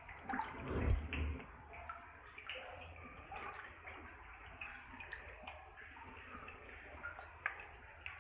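Waist-deep water sloshing and splashing around the legs of a person wading, with a louder surge about a second in and scattered small splashes and drips after it.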